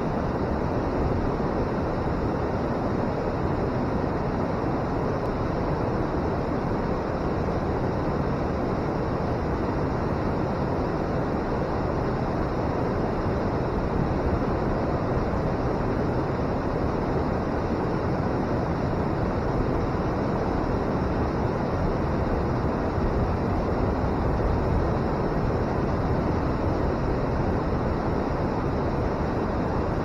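River water pouring over a weir and churning in the white water below it: a steady, unbroken roar with most of its weight in the low and middle range.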